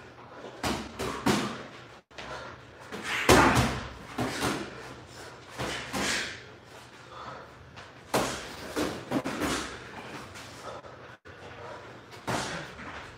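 Boxing gloves thudding as punches land during a sparring round, in irregular flurries of several quick hits, the loudest about three seconds in.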